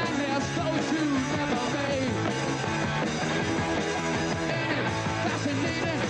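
Punk rock band music with electric guitar, playing steadily without a break.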